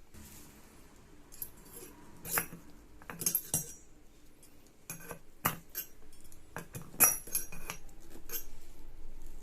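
Irregular metallic clicks and clinks of tools and metal parts as a bearing and its retaining circlip are fitted into a scooter's CVT driven pulley, the loudest clink about seven seconds in.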